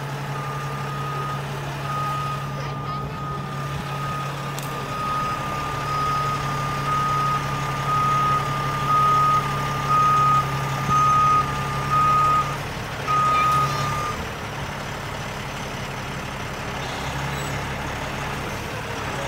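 Heavy-duty rotator tow truck's diesel engine running steadily while a warning alarm beeps about once a second as the boom is raised. The beeps grow louder, then stop about 14 seconds in, with the engine running on.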